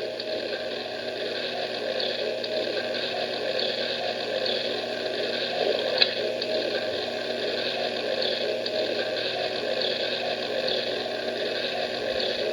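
Lionel aquarium car's sound effect playing steady aquarium water bubbling, with a single sharp click about six seconds in.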